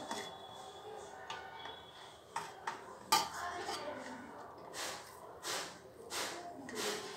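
Hands squeezing crumbly cooked rice rava mixture into balls over a stainless steel plate, with a few light clicks against the steel a few seconds in, then short soft rustles about every two-thirds of a second.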